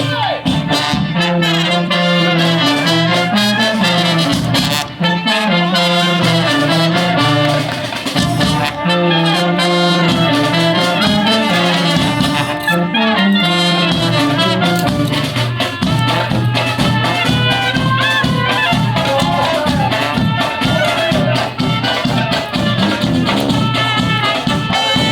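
Klezmer brass band playing a tune live: trumpets and trombones carry the melody over a stepping bass line, with a steady drum beat coming to the fore in the second half.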